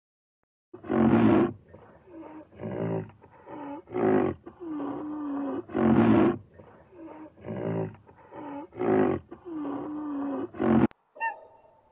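Greater one-horned rhinoceros calling: a long run of deep, short grunting calls at one or two a second, some dipping and rising in pitch, cut off by a sharp click near the end.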